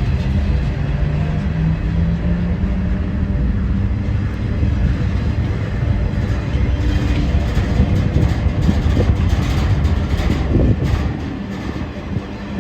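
Freight train flat cars rolling slowly over a road crossing: a steady heavy rumble from the wheels on the rails, with a run of sharp clacks about halfway through.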